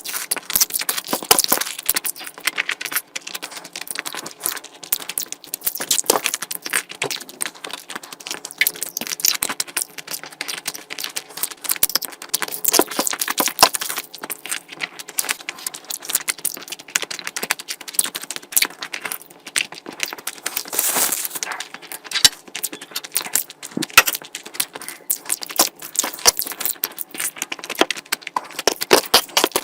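Close-miked eating sounds from a person eating curry: wet chewing, lip smacking and crackling in a dense, irregular run of small clicks.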